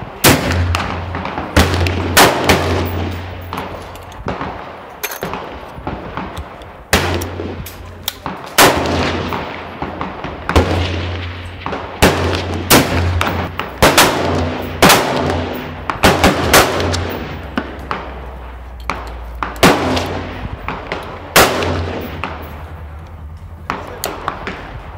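Gunfire from several guns on a shooting range: many sharp shots at irregular intervals, sometimes two or three close together, each followed by a long echo.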